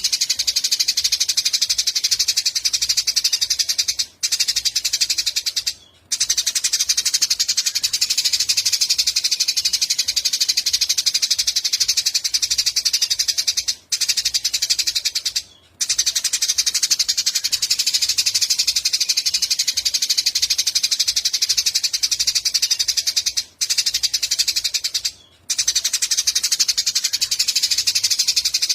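Small songbird singing a continuous, very rapid high-pitched trill, broken by pairs of short pauses roughly every ten seconds, like a looped recording used for training cage birds.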